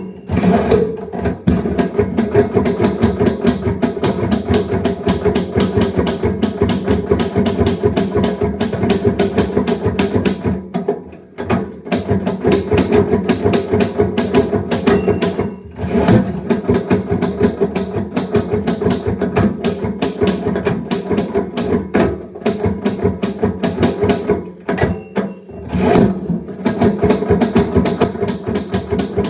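Typewriter keys typing rapidly in long continuous runs of clacking strikes, broken by short pauses about 11, 15 and 25 seconds in. A steady pitched layer sounds underneath.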